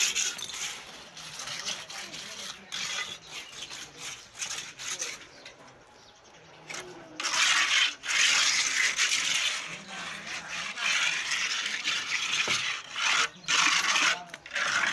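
Bricklaying work: a mason's trowel scraping mortar across brick courses, with irregular clinks and taps of steel on brick and a long stretch of loud scraping about seven seconds in.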